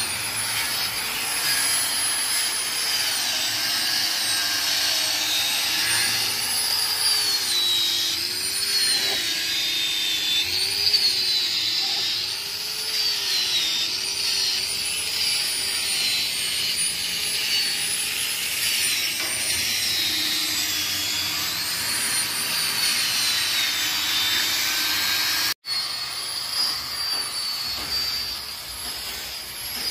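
Steady machine whirring with a high whine that wavers up and down in pitch, cut off for a moment near the end.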